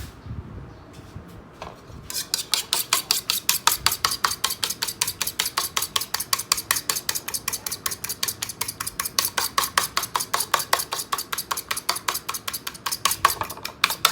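An egg being beaten in a bowl, the utensil clicking rapidly against the bowl at about six strokes a second. The beating starts about two seconds in, after a few light knocks.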